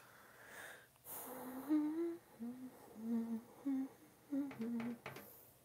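A woman humming a short tune, a run of about eight held notes at a fairly low pitch, starting about a second in.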